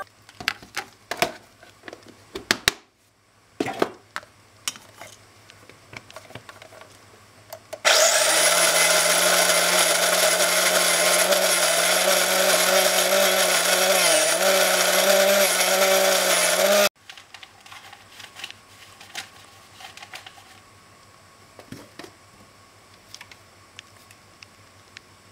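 Small electric motor of a kitchen appliance running steadily at high speed for about nine seconds, dipping briefly in pitch once, then cutting off suddenly. Before it come light clicks and knocks of things being handled.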